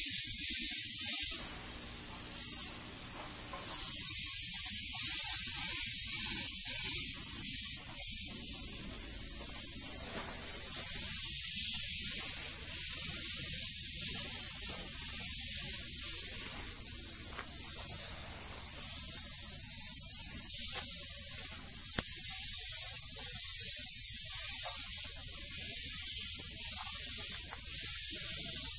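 Paint spray gun hissing, a high steady hiss that swells and fades every few seconds as the spraying starts and stops.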